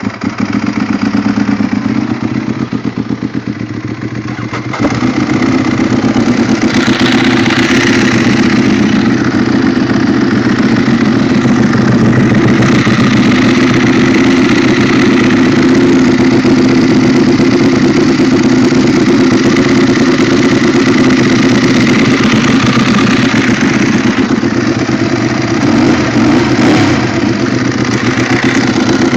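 Two Ducati 1198 L-twin motorcycles running together at idle, one through a 70 mm Termignoni full exhaust system, the other through stock cans fitted with an A&R Motorsports baffle kit. The sound gets louder about five seconds in, then holds steady.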